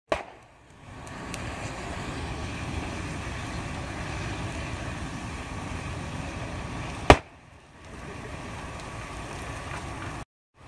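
Two sharp bangs of gas canisters exploding in a burning lorry, one just after the start and a louder one about seven seconds in, over the steady rushing noise of the blaze.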